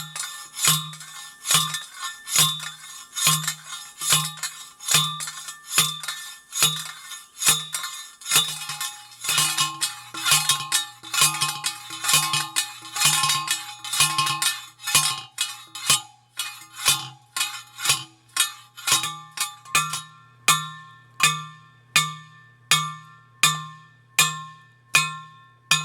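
Repeated hammer blows driving a ground rod into hard, rocky soil, about one strike a second and quickening near the end, each blow leaving a metallic ring.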